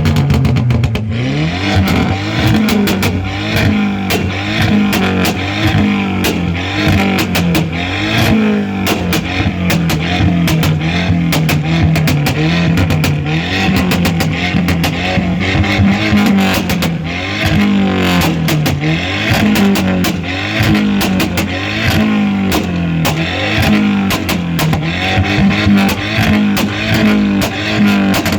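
Audi TT engine with a custom exhaust blipped over and over, its pitch rising and falling roughly once a second, with crackles and bangs from the exhaust between the revs.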